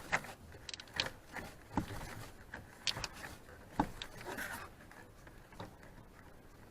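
Scattered light clicks, taps and rubbing of hands working the plastic plumbing valves and fittings of the RV water heater bypass, about a dozen irregular knocks that thin out near the end.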